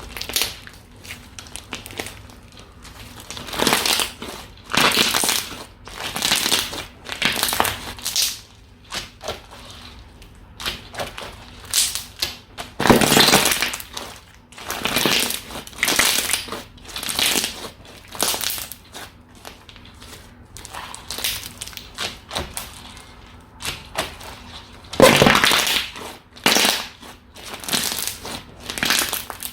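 Slime squished and pressed by hand in a series of irregular squelching, crackling presses. The loudest presses come about thirteen and twenty-five seconds in.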